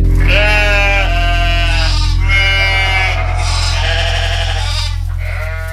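Sheep bleating, about five wavering bleats in a row, over a held low bass note that slowly fades out.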